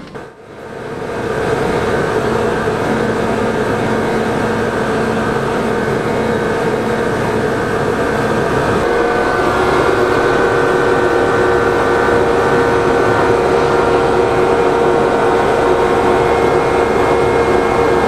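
Electric rack-railway train running, heard from inside the front of the train: a steady whine of motors and gearing held on a few tones over the rumble of the wheels on the track. It fades in over the first second or so.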